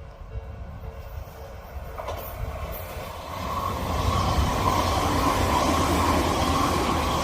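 Odakyu Line electric train approaching and running through a level crossing, growing louder from about two seconds in and steady and loud from about four seconds. Early on the crossing's warning bell rings in even pulses, about two a second, and is soon drowned out by the train.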